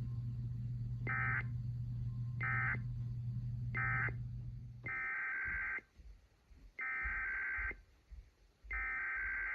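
Emergency Alert System SAME data tones, buzzing digital bursts. First come three short end-of-message bursts about a second and a half apart over a steady low hum that cuts off about five seconds in. Then come three longer, roughly one-second bursts of the next alert's header.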